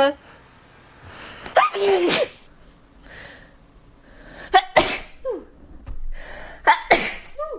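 A person sneezing three times, a couple of seconds apart; each sneeze is a rising voiced intake that breaks into a sharp, noisy burst.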